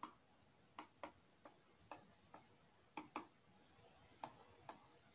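Faint, irregular clicks of a stylus tapping on a pen tablet during handwriting, about ten over five seconds, in near silence.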